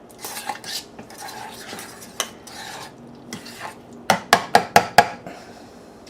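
A utensil stirring a thick blue cheese topping in a bowl, scraping around the sides, then five quick sharp clicks against the bowl about four seconds in.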